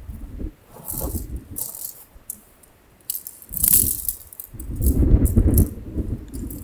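Tent and tent poles being unpacked and handled: irregular rattling, clattering and rustling, with low rumbles on the microphone.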